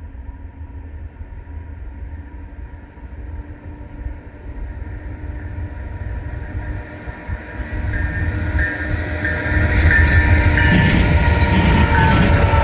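A CN diesel-led freight train approaching. Its low rumble grows steadily louder and becomes loudest over the last few seconds as the locomotives draw near.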